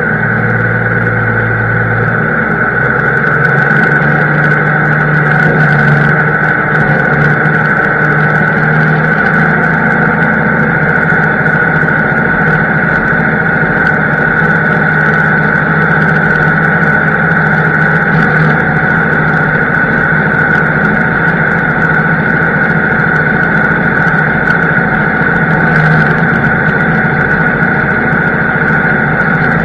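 Farm tractor engine running steadily under load, heard from inside the cab, with a steady high-pitched whine over the engine note. The engine's low tone shifts up slightly about two seconds in.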